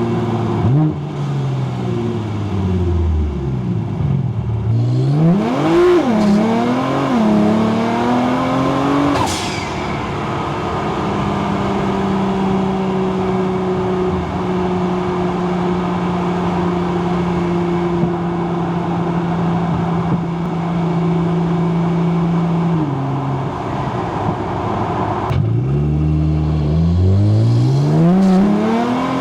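Nissan GT-R R35's twin-turbo 3.8-litre V6 heard from inside the car: the engine note falls as it slows, then rises through a pull that ends about nine seconds in with a brief high whistle. A long steady cruise follows, and near the end another hard pull builds with the pitch climbing steeply.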